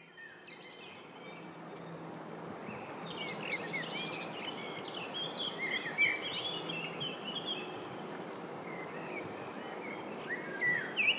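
Several songbirds singing in short chirps and trills over the steady rush of a shallow stream running over stones, the whole fading in over the first few seconds.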